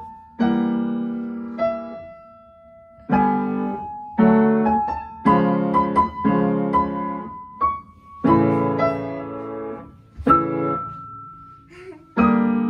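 A child practising on the piano, striking chords one at a time in a halting, uneven rhythm. Each chord rings and dies away, with short pauses before the next, the stop-start playing of a learner still working the piece out.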